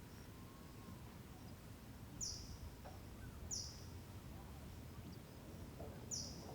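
A bird calling three times, each a short, high chirp that drops sharply in pitch, over a faint outdoor background hiss.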